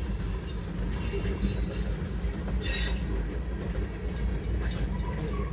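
Freight train cars rolling past with a steady low rumble of wheels on rail. About two and a half seconds in, a brief high-pitched wheel squeal cuts through.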